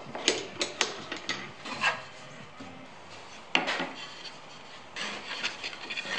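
Walnut boards handled on a wooden workbench: several sharp knocks and clicks, then pieces of wood rubbing and scraping against each other near the end.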